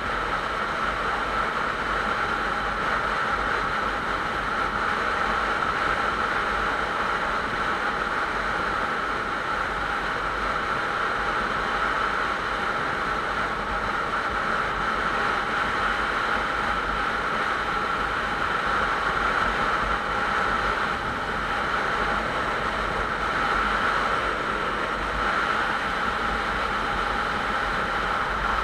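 Steady wind rush and engine drone of a motorcycle cruising at highway speed, picked up by a camera mounted on the bike.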